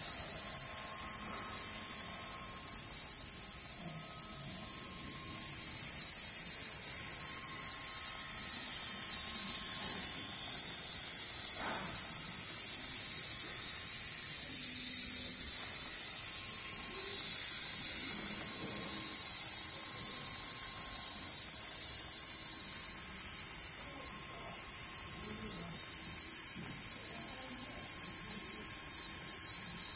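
Large-format computerized pattern sewing machine stitching leather: a steady, high-pitched buzz from the sewing head running fast, easing off briefly about four seconds in.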